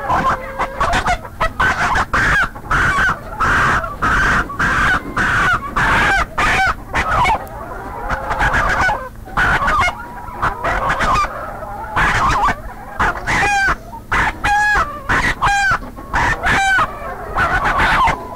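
Chickens clucking and cackling, a continuous run of short, repeated calls.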